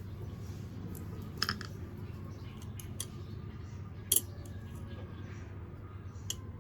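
A few short, sharp clicks from small hand work, the loudest a little after four seconds in, over a steady low hum.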